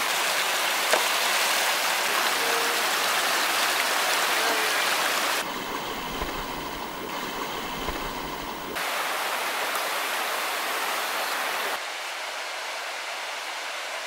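Small rocky forest stream rushing and splashing over stones in a steady wash of water. It turns softer and duller for a few seconds in the middle, then louder again, and softer once more near the end.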